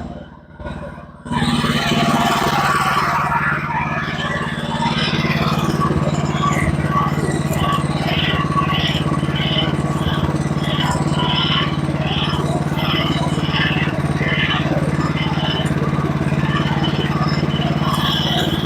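Sawmill running steadily under power while its blade cuts a half-inch strip off a board to make a 2x6. It comes in suddenly about a second in.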